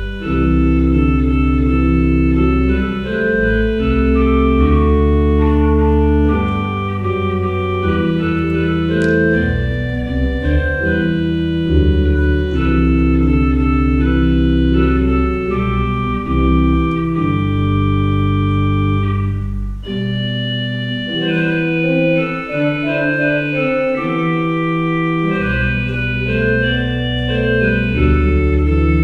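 Pipe organ playing prelude music: slow, held chords over a low pedal bass, the pedal notes dropping out for a few seconds in the second half.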